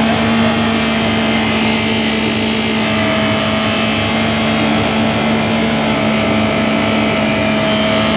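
Yamaha VX110 WaveRunner's four-cylinder four-stroke engine running at steady high revs with the throttle held open. It is on a load test after its salt-corroded cooling passages were cleaned out, to check that it no longer overheats.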